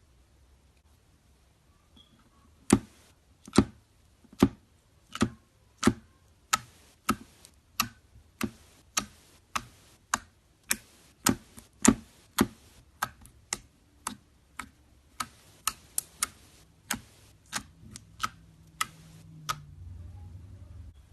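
Metallic slime being pressed and poked, giving a long, even run of sharp clicks and pops, a little under two a second.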